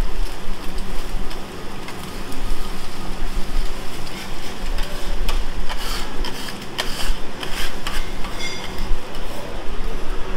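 Metal spatula scraping and tapping on a hot steel teppanyaki griddle as fried rice sizzles, with a run of sharp metal clicks in the middle.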